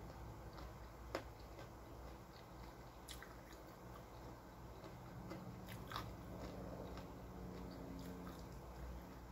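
A person chewing food close to the microphone, with soft crunching and a few sharp clicks about one, three and six seconds in.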